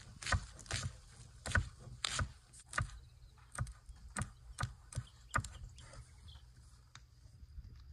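A broad-bladed knife chopping callaloo leaves and stems on a wooden end-grain cutting board, each stroke knocking sharply on the wood at an uneven pace of one to two a second. The strokes turn lighter and softer in the last couple of seconds.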